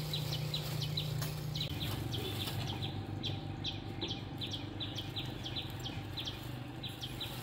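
A small bird chirping over and over, short high chirps several times a second, over a steady low hum, with a few brief rustles of plastic bags being handled.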